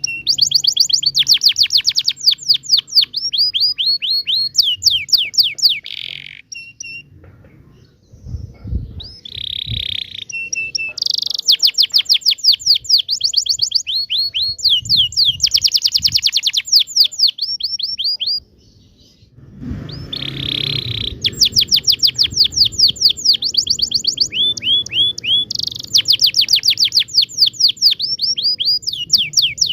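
Domestic canary singing a long rolling song of rapid, repeated downward-sweeping trills, broken by short pauses about 7 and 18 seconds in. A few low thuds sound underneath.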